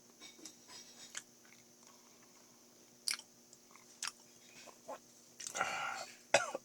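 Close-up eating sounds of a man eating a soft Choco Pie and milk mash: scattered wet mouth smacks and clicks while chewing, with a longer, denser stretch of mouth noise near the end.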